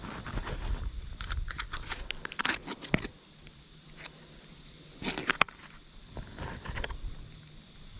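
Plastic bag of soft-plastic jig tails crinkling as it is handled, in crackling bursts about a second in, again about five seconds in, and once more just after six seconds.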